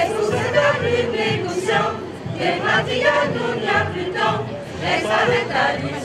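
A crowd cheering and chanting, many voices at once, over music.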